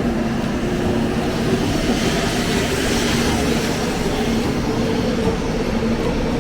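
Train running, a steady rumble with a low hum, the hiss swelling about three seconds in.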